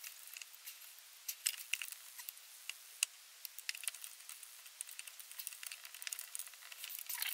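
Faint, irregular small clicks and taps from a split charge relay and its cable terminal being handled by hand while the terminal is fitted and tightened down.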